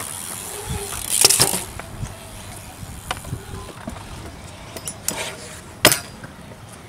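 BMX and scooter wheels rolling and scraping on a concrete skatepark bowl. There is a loud scrape about a second in, scattered clicks, and one sharp clack just before six seconds.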